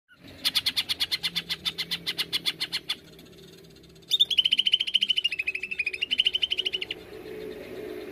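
Cucak ijo (green leafbird) singing two rapid 'nembak' bursts of repeated notes. The first is rougher, at about nine notes a second for over two seconds. After a short pause comes a faster, clearer run that dips slightly in pitch and rises again. A faint low hum remains after the song stops.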